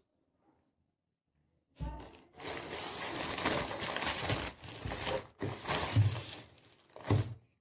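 Plastic courier bags being handled and crinkled: a loud rustling that starts about two seconds in and goes on in several stretches with short breaks, stopping just before the end.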